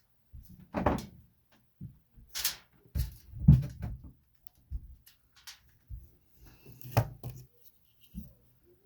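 Handling noise on a workbench while soldering: irregular knocks, taps and short scrapes of tools and wire being moved and set down, the loudest about three and a half seconds in and again about seven seconds in.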